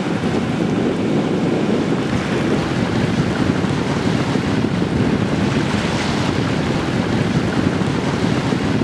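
Steady rushing of water along the hull of a sailing yacht under motor, mixed with wind noise on the microphone from the boat's own motion through still air.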